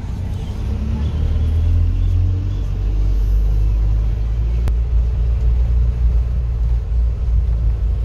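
Engine and road rumble of a moving vehicle heard from inside its cab, low and steady, with the engine note rising over the first few seconds as it speeds up. A single short click about halfway through.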